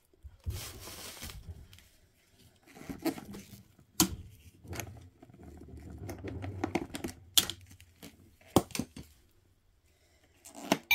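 A screwdriver working against a hard plastic toy, with several sharp plastic clicks and scraping mixed with brief rustling.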